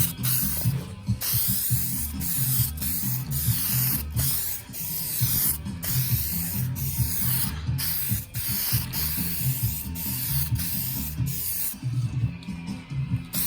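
Primer being sprayed onto car body panels in about a dozen short passes, each a brief hiss with quick gaps between, which stop near the end.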